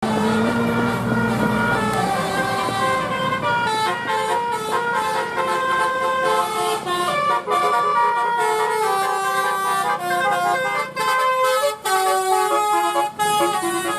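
Bus telolet horn, a multi-trumpet musical horn, playing a quick melody of stepped notes. A low engine hum runs underneath for the first few seconds.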